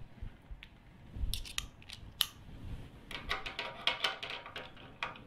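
Light metallic clicks and scrapes from a nut driver being seated on and turning a small nut on a hard disk's head assembly. The sharpest click comes about two seconds in, and a close run of clicks follows a second later.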